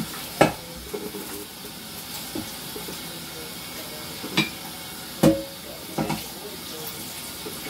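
Hot tap water running steadily into a skillet at the sink while it is washed, with several sharp knocks of the pan, the loudest about half a second in and about five seconds in.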